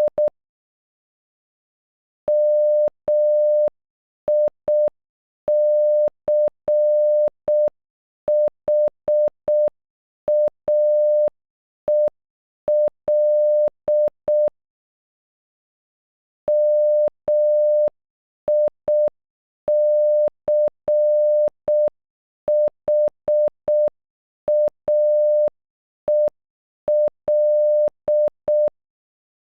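Electronic Morse code tone, a steady beep of about 600 Hz keyed slowly at half speed, spelling MICHAEL (-- .. -.-. .... .- . .-..) twice with a pause of about two seconds between the two passes.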